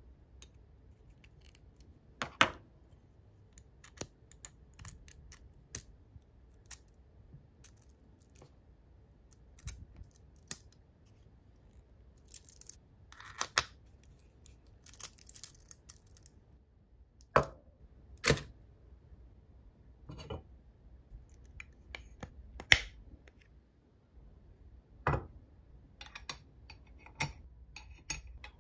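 Metal parts of a full-metal turbofan engine model kit being handled and assembled: scattered sharp clicks and clinks as aluminium rings, discs and small screws touch and are set down, with a short scratchy rattle partway through as screws are driven into the fan disc with a hex screwdriver.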